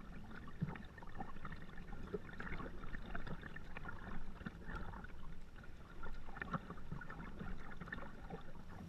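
Water splashing and gurgling against the bow of a plastic kayak as it is paddled along, in many small irregular splashes over a low steady rumble.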